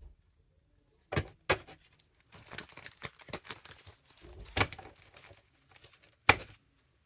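Tarot cards being shuffled and handled, a rustling riffle with several sharp knocks, the loudest near the end.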